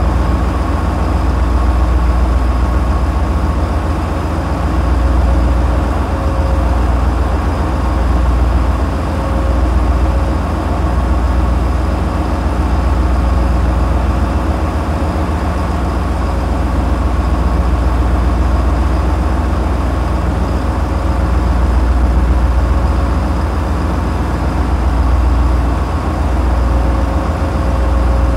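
A tugboat's 450-horsepower engines running at a constant speed: a steady, heavy low drone that swells and eases slightly every few seconds, with faint steady whines above it.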